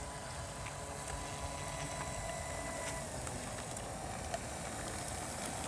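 Radio-controlled T-28 Trojan model plane's electric motor whining at a steady pitch as it rolls out on the road with its brake parachute deployed, cutting off about three seconds in, over a low rumble.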